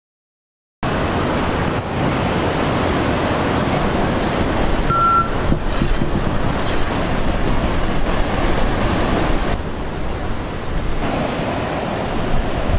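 Steady loud rushing outdoor noise that starts suddenly about a second in, with a brief high beep about five seconds in.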